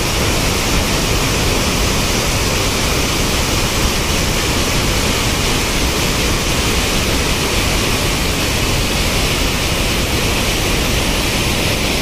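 Steady, loud rush of water cascading over a dam's overflow as a small waterfall, heard close by.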